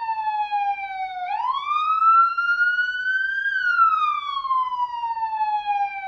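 Police siren sounding a slow wail. Its pitch sinks for about a second, sweeps back up over about two seconds, then sinks slowly again for about three, with a second upward sweep starting just at the end.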